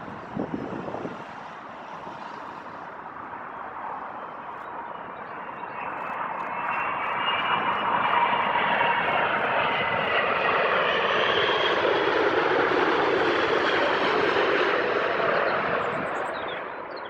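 Airbus A380 jet engines passing on a landing: a steady jet noise that swells over several seconds, with a whine that slides down in pitch. It fades away near the end.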